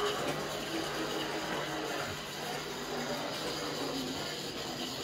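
An old Triang model railway locomotive's electric motor running with a steady hum and whirr, very noisy.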